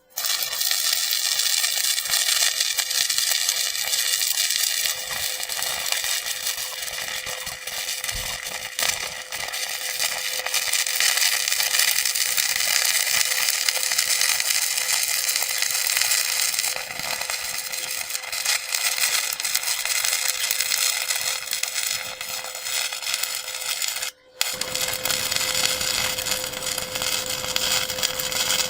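Stick welding with an E6013 electrode: the arc sizzles steadily. It cuts out once, briefly, near the end.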